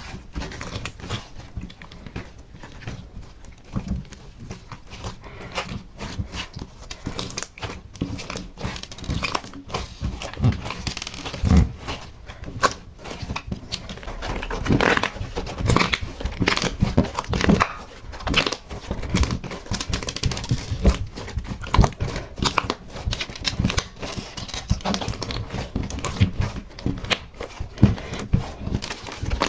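Slime being squished, stretched and mixed, with a steady run of irregular sticky crackles, pops and squelches that grow busier and louder about halfway through.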